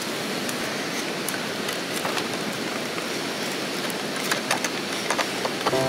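Small kindling fire catching in a fire pit, over a steady rushing hiss, with a few sharp crackles a little past the middle.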